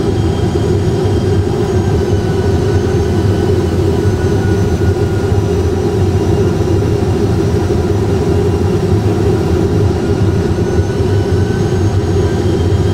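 Steady, loud cockpit rumble of an Airbus A320 full flight simulator on approach, with the gear down and flaps full: simulated engine and airflow noise at low approach thrust, with a faint high whine drifting slightly in pitch.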